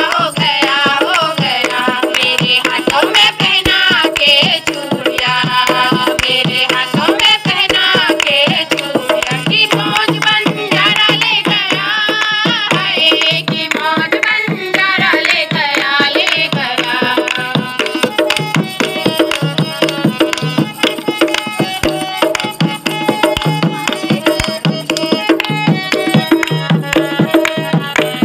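Pahari folk song: singing over a steady hand-drum beat, with people clapping along.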